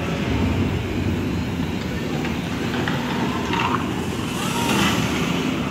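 Steady low rumble of indoor exhibition-hall ambience, with a few faint higher sounds about three to five seconds in.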